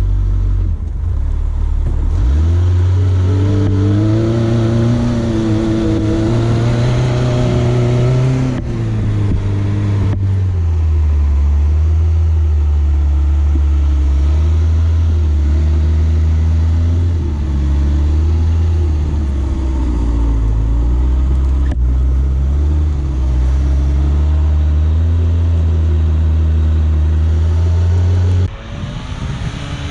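Suzuki SJ410's small four-cylinder engine pulling under throttle. Its pitch climbs about two seconds in, falls back near the middle, rises and falls with the throttle, then drops sharply near the end.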